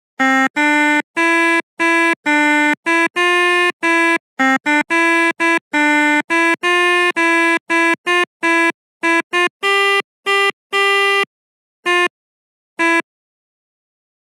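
Melodica (pianika) playing a 'telolet' bus-horn tune: a quick run of short, separate reedy notes that thins out into a few widely spaced notes near the end.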